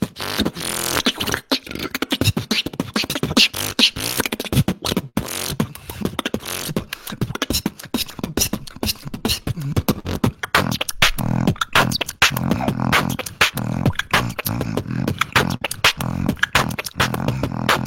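Human beatboxing: a fast, dense run of vocal kicks, snares and clicks, with a low hummed bass line sounding under the beat from about twelve seconds in.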